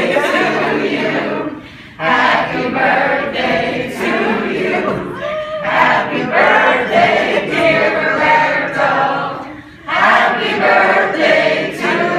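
A large group of people singing together in unison, in long phrases with short breaks about two seconds in and again near ten seconds.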